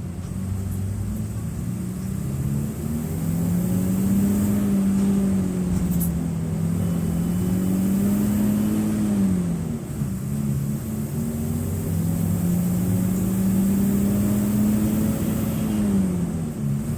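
Mercedes-Benz OF-1723 bus's OM906LA six-cylinder turbodiesel (Euro III) pulling under load. The revs climb and hold for several seconds, then drop off, twice.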